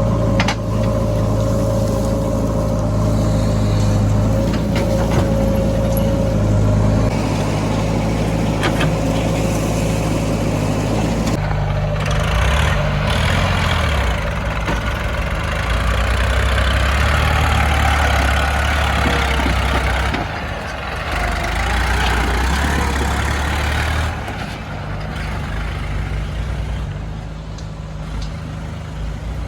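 Heavy diesel engines of earthmoving machinery and tractors running at work. About twelve seconds in the sound changes and a rushing noise joins for about twelve seconds, then eases off.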